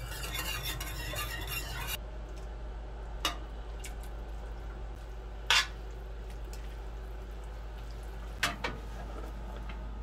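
Sauce stirred in a stainless steel sauté pan, a dense scraping and clinking for about two seconds. Then come a few sharp clinks of a metal utensil against the pan, the loudest about five and a half seconds in and a quick pair near the end.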